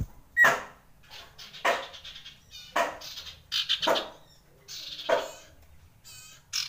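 Common iora giving a series of six short, harsh calls, about one a second.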